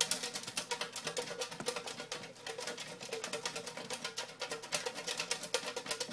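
Raffle slips rattling inside a tin as it is shaken rapidly back and forth to mix them: a fast, continuous clatter of many small clicks.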